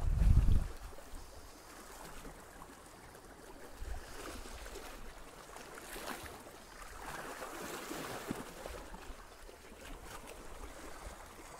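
Calm sea lapping and washing softly against shore rocks, swelling gently a few times. A gust of wind buffets the microphone for the first half-second, then dies away.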